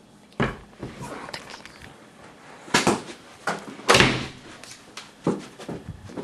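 A handful of sharp knocks and thumps, the loudest about four seconds in.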